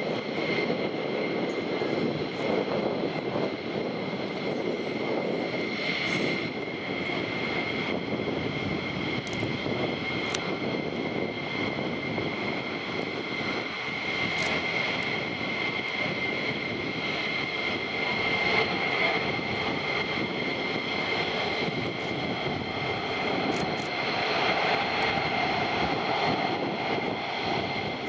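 F-15 fighter jets' twin turbofan engines at taxi power: a steady, high-pitched jet whine over a continuous rushing noise.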